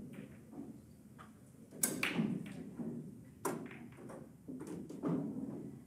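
Nine-ball break shot on a pool table: a sharp crack about two seconds in as the cue ball smashes into the rack, then balls clacking off one another and the rails, with another sharp ball collision about a second and a half later.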